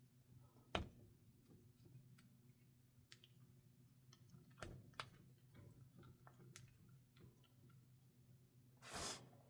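Quiet, scattered small clicks and taps from handling parts, the sharpest just before a second in, over a low steady hum, with a short rustle near the end.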